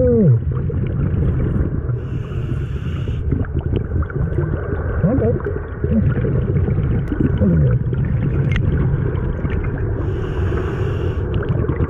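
Underwater sound of a scuba diver in a river: a steady low rumble of water, with the hiss of a breath drawn through the regulator twice, about eight seconds apart. A few short, muffled, gliding voice sounds from the diver come in around the middle.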